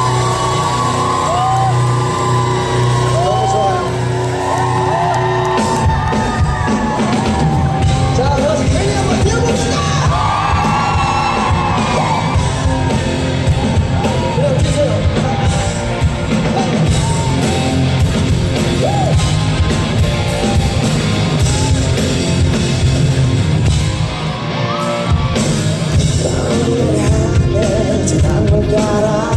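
Live pop-rock band and singer performing on stage, with audience yells and whoops and the ring of a large hall. A heavy driving beat comes in about six seconds in.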